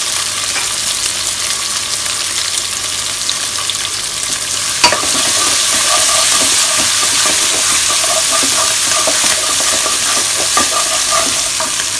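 Curry leaves, garlic, ginger and green chillies sizzling in hot sesame oil in a nonstick wok, stirred with a wooden spatula. A single sharp click about five seconds in, after which the frying is a little louder.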